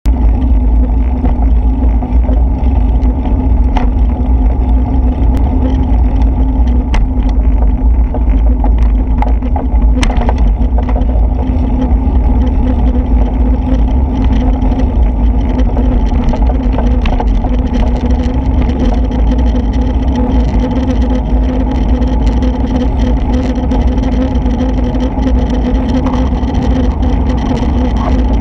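Wind rumbling on the microphone of a camera moving along a city street, with a steady low hum underneath. A few sharp ticks stand out over it.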